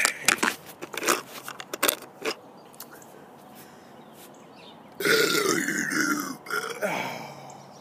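A man's long, loud burp, starting about five seconds in and lasting over two seconds, dropping in pitch as it goes. A few sharp clicks come before it in the first two seconds.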